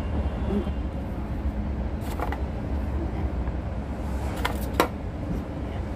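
Steady low rumble, with light clicks and taps from hands handling floured eggplant slices on a cutting board: once about two seconds in and a few more around four and a half seconds in, the last the sharpest.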